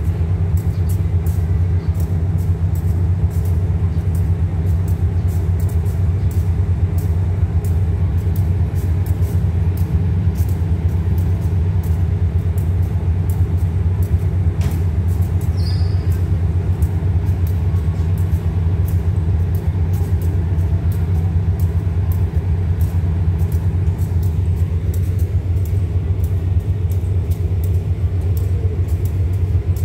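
Diesel locomotive engine idling while the train stands at the station: a steady low rumble that holds the same pace throughout.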